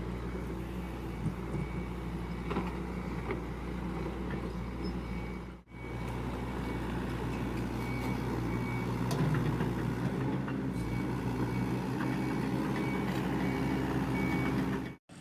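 A heavy machine's engine running steadily, with a high-pitched beeping alarm sounding on and off over it. The sound drops out briefly about five and a half seconds in, then resumes.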